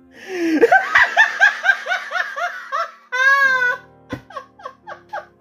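A man laughing loudly: a quick run of rhythmic ha-ha bursts for about three seconds, a short drawn-out wavering cry, then slower, separate chuckles. A faint steady music drone lies underneath.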